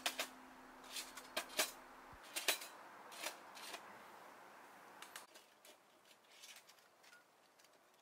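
Thin metal plates of a small flat-pack fire stand clinking and scraping against each other and the metal tray as the stand is taken apart. Sharp clinks come in quick succession over the first few seconds, then fainter ticks.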